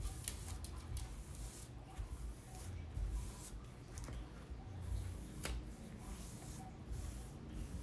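Hands rubbing and smoothing a sheet of printer paper down onto a glue-coated canvas: soft, irregular papery rubbing and rustling, with a few dull low bumps as the hands press down.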